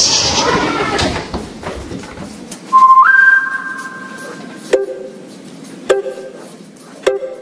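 A brief "shh" hiss, then about three seconds in a loud, shrill whistling tone that steps up in pitch and holds for about two seconds, followed by three sharp knocks, each with a short ringing tone.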